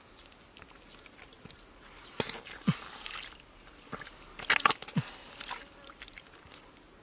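Wet mud squelching and splatting as hands dig into shallow mud and grab catfish, in two clusters of wet slaps, about two to three seconds in and again about four and a half to five seconds in.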